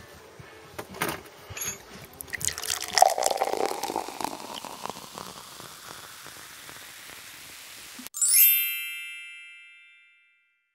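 Light clicks and knocks of hands working at a car's front brake caliper, then a rushing hiss. About eight seconds in the hiss cuts off and a bell-like chime rings out, fading away over about two seconds.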